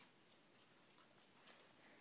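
A few faint ticks of a small puppy's claws on a hardwood floor as he walks, against near silence.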